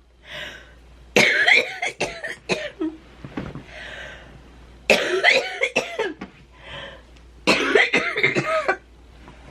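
Coughing fit from a person with cystic fibrosis: several loud bursts of hard coughing a few seconds apart, with softer hissing breaths drawn in between.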